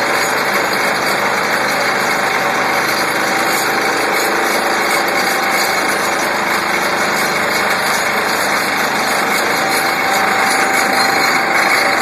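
Vibratory pile hammer driving a steel sheet pile: a loud, steady mechanical drone that gets a little louder over the last couple of seconds.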